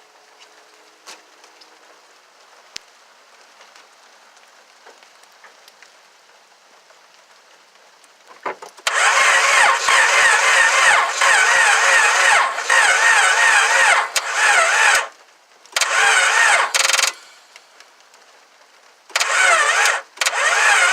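2000 Honda Accord engine being cranked by its starter motor in three tries: a long crank of about six seconds, a short one, then another, each stopping without the engine catching. The owner suspects the timing is still off.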